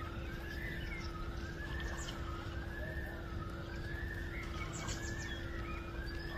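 A siren wailing, its pitch sweeping smoothly up and down about once a second, over a steady low hum and rumble.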